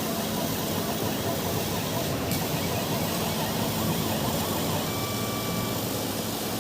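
Laser cutting machine running on wood: a steady rushing air noise with a faint low hum, and a thin high tone that comes in near the end.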